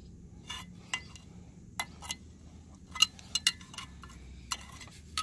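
Screwdriver working the locking tabs of the propeller nut's tab washer on a Mercury outboard, bending them out: a string of sharp, irregular metal clinks.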